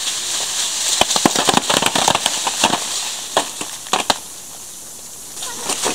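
Ripe apricots dropping from a shaken tree onto a tarp spread beneath it, making many quick, irregular thuds over a rustle of leaves. The fall dies away after about four seconds.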